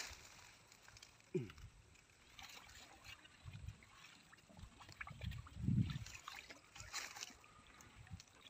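Faint sloshing and splashing of water as someone gropes by hand for fish under water, with a few short low sounds scattered through.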